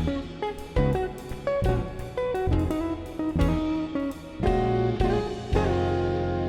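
Background music: plucked guitar notes over a light drum beat.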